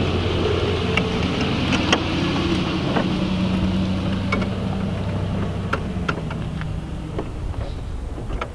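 A motor vehicle engine idling steadily, with scattered light clicks and knocks on top.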